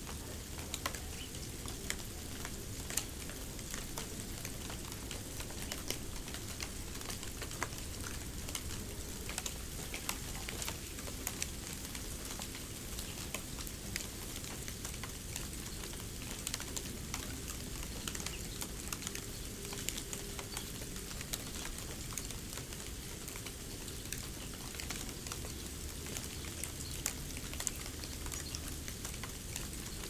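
Snow sounds: a steady fine crackling hiss, thick with tiny irregular ticks, at an even level.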